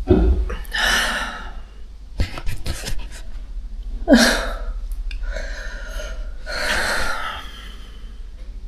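A person's breathy gasps and exhalations, four or five in a row, with a few clicks around two seconds in and a steady low hum underneath.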